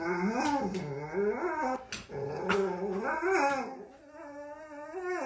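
Dog whining in three long, wavering whines, the last one quieter: the anxious whine of a dog too frightened of a cat to fetch its ball.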